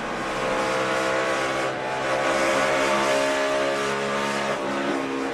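NASCAR stock car's pushrod V8 engine running hard at high revs, a steady engine note that dips slightly in pitch near the end.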